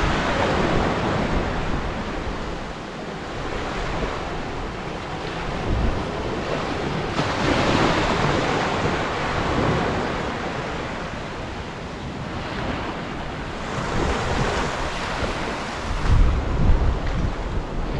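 Small waves breaking and washing up a sandy beach, the surf swelling and falling away every few seconds. Wind gusts buffet the microphone near the end.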